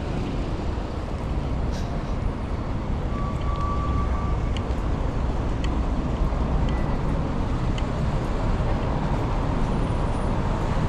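Busy city street traffic: a steady rumble of passing cars and other vehicles. A brief thin steady tone sounds a little over three seconds in.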